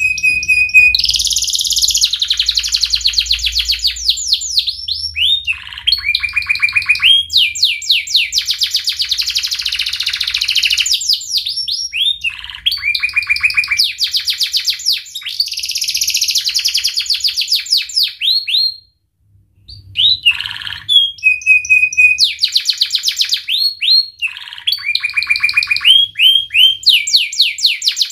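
Domestic canary singing a long, loud song of rapid trills and rolls, switching to a new phrase every second or two, with one short break about nineteen seconds in.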